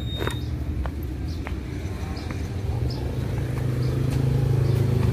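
Motor scooter engine idling, a low steady hum that grows louder about three seconds in, with scattered light clicks.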